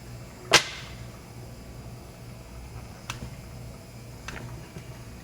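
A sharp snap or click about half a second in, then a fainter click a few seconds later, over a low steady hum.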